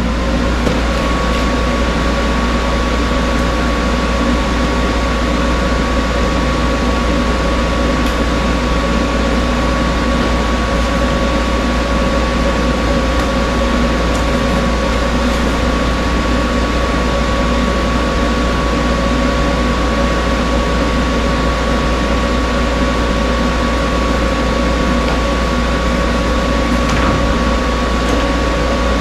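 A machine running steadily: a constant motor hum with a steady high whine and no change in pace.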